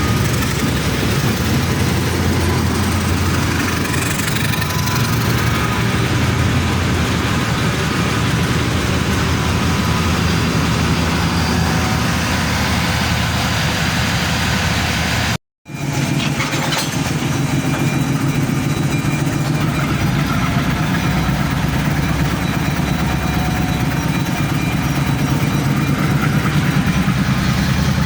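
GE U20C diesel-electric locomotives' engines running steadily as the freight train pulls into the station. The sound cuts out completely for a moment about halfway through, then the engines continue.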